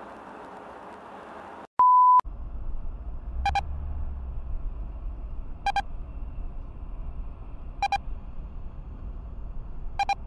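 A loud, steady single-pitch electronic bleep lasting about half a second, about two seconds in, framed by a brief gap in the sound. Then comes low road rumble heard inside a car, with a short electronic beep repeating about every two seconds.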